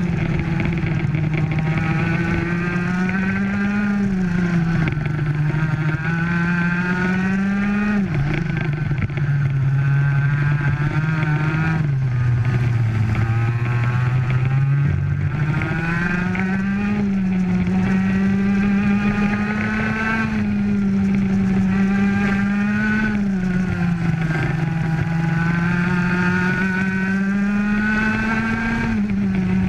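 Racing kart engine at full race pace, heard onboard: the engine note climbs in pitch as it accelerates, then drops as the throttle comes off, over and over, with one sharp drop about a third of the way in.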